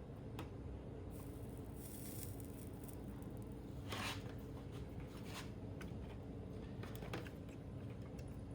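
Faint handling noise: a few small sharp clicks and a brief rustle about four seconds in, over a steady low hum.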